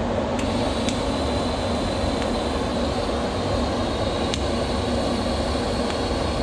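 A steady mechanical running noise with a constant hum and a faint high whine, with a few light clicks over it.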